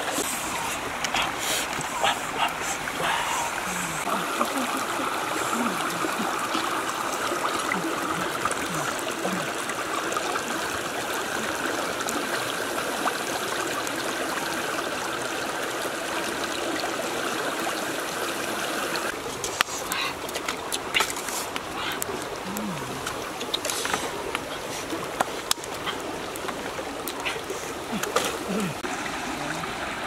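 Shallow stream running over rocks, a steady rushing and trickling, with scattered sharp clicks and knocks.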